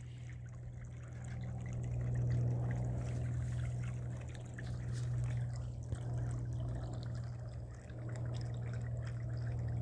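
Small electric water pump running with a steady low hum while its outflow trickles and splashes back into the chickens' water, keeping it moving to stop it freezing.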